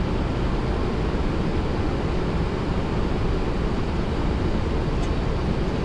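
Steady rush of airflow and engine noise heard inside the flight deck of a Boeing 737-800 in flight.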